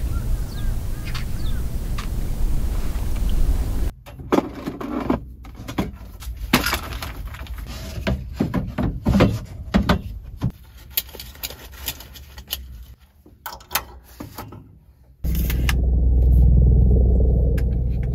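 A steady low rumbling noise, then a run of sharp clicks, taps and light knocks as small objects are handled and set down on the counter inside the truck-bed camper. Near the end a loud steady low rumble starts and runs for a few seconds.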